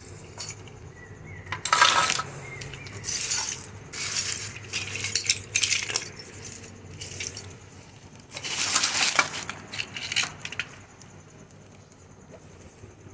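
Small metal parts of a dismantled motor starter clinking and rattling as they are handled and rummaged through, in several separate bursts.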